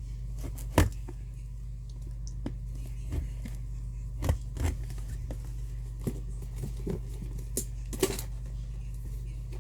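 Cardboard box and packaging being opened and handled: scattered clicks, scrapes and tearing, with a sharp knock about a second in and another near the end, over a steady low hum.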